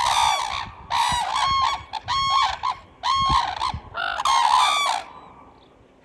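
Red-crowned cranes calling: a series of loud, high calls in about five bursts, stopping about five seconds in.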